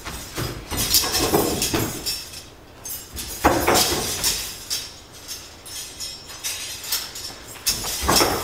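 Irregular knocks, bumps and scrapes of someone moving about a wooden stage and handling props, with a few sharper knocks.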